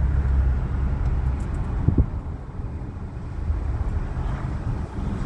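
A car being driven slowly: a steady low rumble of engine and road noise, with a short knock about two seconds in.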